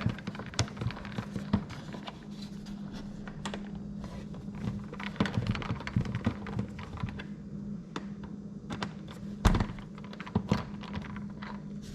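Irregular small clicks and taps of hand work with a screwdriver on a Tesla Wall Connector's mounting screws and housing, with one louder knock about nine and a half seconds in. A steady low hum runs underneath.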